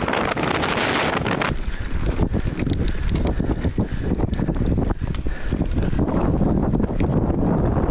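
Wind buffeting the camera microphone over the steady rumble of mountain bike tyres rolling down a dirt and gravel trail, with scattered clicks and rattles.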